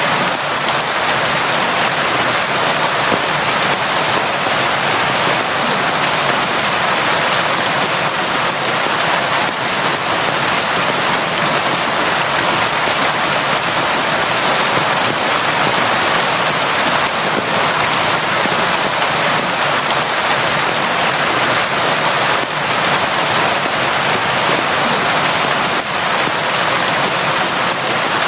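Steady, constant rain: a dense even hiss of drops falling, with no breaks or thunder claps.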